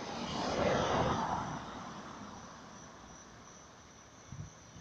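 A motor vehicle passing close by, its noise swelling in the first second and fading over the next two. A steady high insect trill runs underneath, and a short low thump comes near the end.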